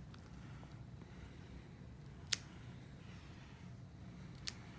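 Nail clippers snipping through a cat's claws: two sharp clicks, a loud one about two seconds in and a fainter one near the end.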